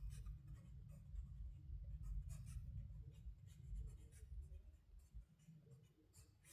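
Faint, irregular scratching strokes over a low steady rumble, growing sparser near the end.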